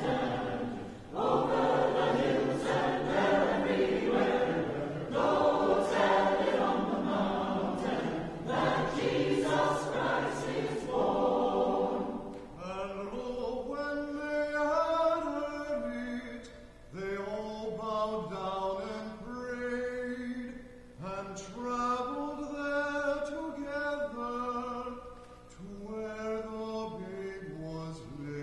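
A choir singing slowly, with no spoken words. About twelve seconds in, the full sound thins to fewer voices holding long notes that step in pitch, and it gets quieter.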